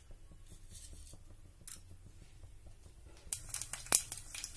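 Mustard seeds with urad dal and fenugreek in hot sesame oil: faint ticking at first, then from about three seconds in a quick run of sharp pops and crackles as the mustard seeds begin to splutter.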